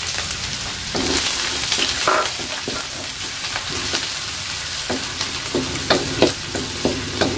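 Sliced shallots sizzling in hot oil in a stainless steel wok, with a wooden spatula scraping and knocking against the pan again and again as they are stirred.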